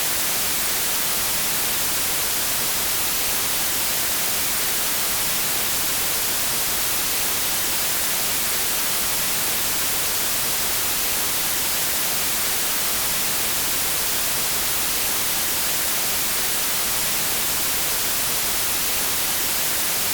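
Radio static: a steady, even hiss of white-noise-like interference, brightest in the upper frequencies and unchanging throughout.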